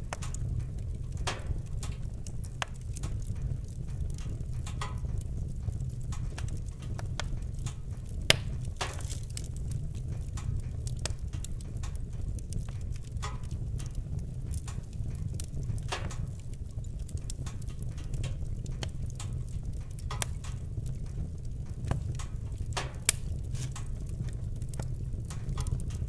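Wood fire burning in a fireplace: irregular crackling and popping over a steady low rumble of the flames, with sharper pops about eight seconds in and near the end.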